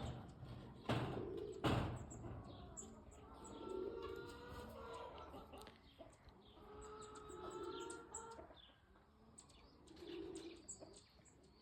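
Birds calling: low, repeated calls under many quick high chirps, with two loud brief rustles, about one and two seconds in.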